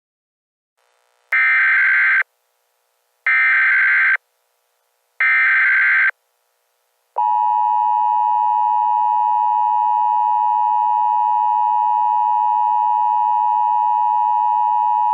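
Emergency Alert System tones. First come three bursts of about a second each, spaced about two seconds apart: the warbling data screech of the SAME digital header. Then the EAS two-tone attention signal, a steady two-note tone held for about eight seconds, which announces that an emergency message follows.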